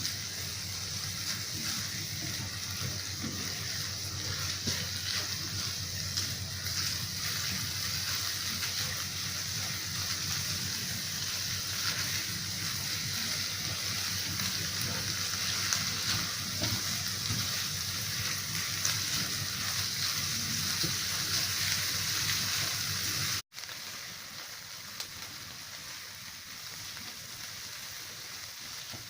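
Ground beef frying in butter with onion in a pan, a steady sizzle with small scattered pops. About 23 seconds in it breaks off for an instant and comes back a little quieter.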